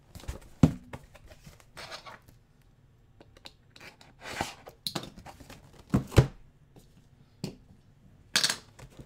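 Cardboard boxes being handled and set down on a stack. There are sharp knocks and thuds of box on box, the loudest about half a second in and another pair around six seconds, with short scraping, sliding rustles of cardboard in between.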